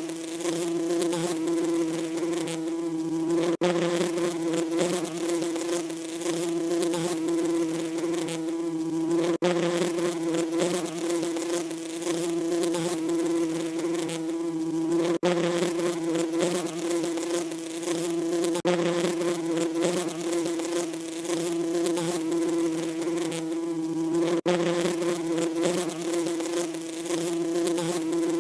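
Bees buzzing in a steady, unbroken drone, cut off for an instant a few times, where the recording appears to be looped.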